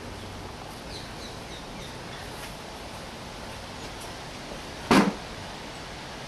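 Quiet outdoor background with a few faint bird chirps in the first couple of seconds, then a single sharp knock about five seconds in.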